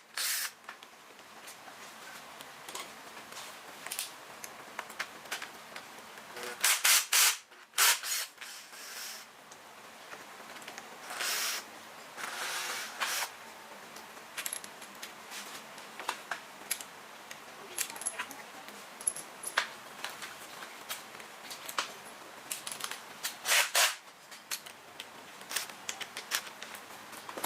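Scattered clicks, taps and brief rattles of hands and small tools working on an electric scooter's handlebar parts, with a few louder bursts of handling noise.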